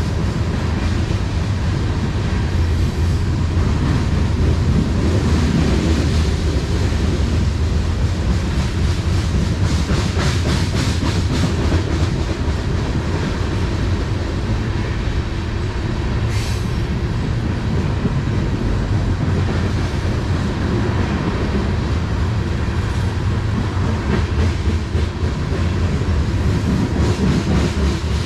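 Loaded coal hopper cars of a unit coal train rolling past below: a steady heavy rumble of wheels on rail with clattering, and a run of rapid clicks about ten to twelve seconds in. A brief high-pitched screech sounds about sixteen seconds in.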